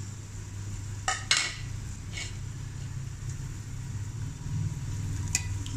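Sliced onions frying in ghee in an aluminium pot, with a few clinks of a metal utensil stirring against the pot, the sharpest about a second in and another near the end, over a steady low hum.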